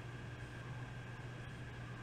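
Steady low hum under a faint even hiss, with no distinct events: room tone.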